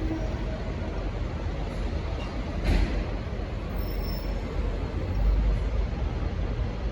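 Diesel train running at a station: a steady low rumble with one sharp knock about three seconds in.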